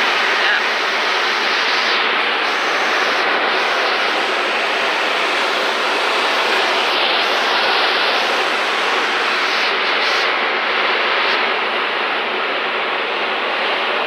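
Steady rush of airflow past a glider's cockpit canopy during an aerotow climb behind a tow plane: an even, unbroken noise with no clear engine note.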